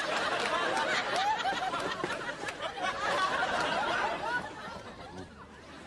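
Several overlapping voices chattering and snickering, with laughter mixed in, fading down over the last second or so.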